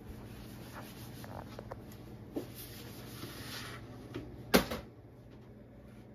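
A few light clicks and taps over a faint steady hum and hiss, then one sharp knock about four and a half seconds in, after which the hiss drops away.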